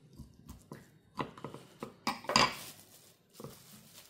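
Kitchen knife slicing through a piece of ham on a wooden cutting board: a series of separate knocks and clicks of the blade and handle against the wood, the loudest about halfway through.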